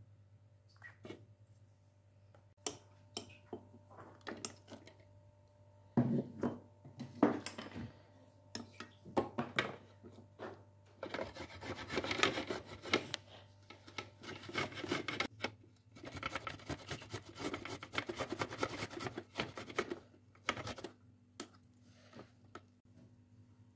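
Ginger and garlic grated by hand on a flat stainless steel grater: rapid rasping strokes in two long runs in the second half, after a few scattered knocks and clicks of handling.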